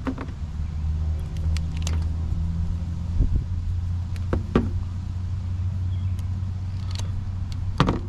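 Hand wire strippers clicking and snapping a few times as insulation is pulled off the wire ends, over the steady low hum of an engine running.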